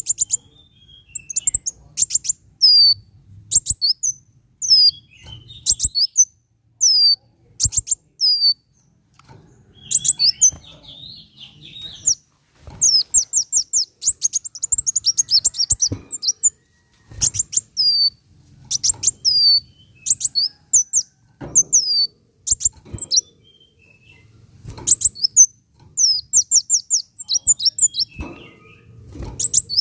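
Kolibri wulung sunbird singing. Its song comes in bursts of rapid, high-pitched chirps and short falling notes, grouped into phrases with brief pauses between them.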